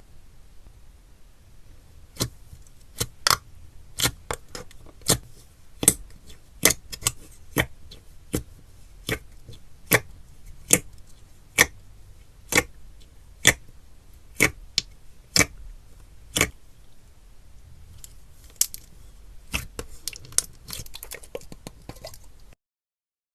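Slime being squeezed and poked, giving sharp popping clicks of trapped air at an irregular pace of about one or two a second. Near the end it breaks into a quicker run of small crackles, then cuts off suddenly.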